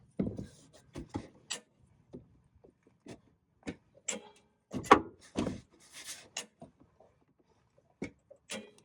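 Irregular metallic clicks, knocks and a brief rustle of a large wrench and socket on the crankshaft pulley bolt as the bolt is turned its final 90 degrees past 240 foot-pounds.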